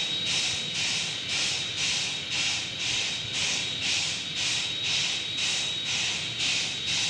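Steam locomotive hissing in even rhythmic puffs, about two a second, with a thin steady high tone underneath.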